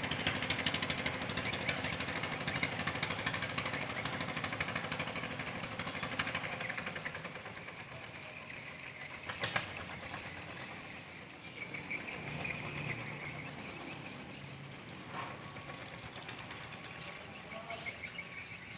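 Small wooden fishing boat's engine chugging with a fast, even beat, fading over the first several seconds as the boat pulls away. A couple of brief clicks come later.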